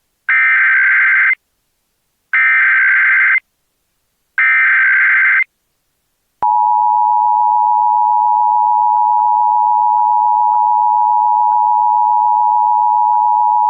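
Emergency Alert System tones. First come three identical screeching bursts of SAME header data, each about a second long, which encode the alert. Then, about six seconds in, the steady two-tone EAS attention signal starts and holds unbroken.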